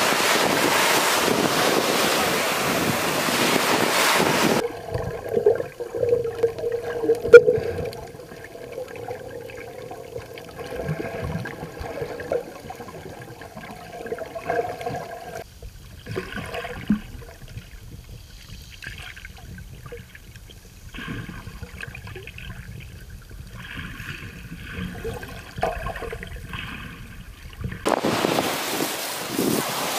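Small waves washing up onto a sandy beach, with wind on the microphone. About four and a half seconds in this cuts suddenly to a much quieter, muffled sound heard underwater, with one sharp knock a couple of seconds later. The surf and wind return near the end.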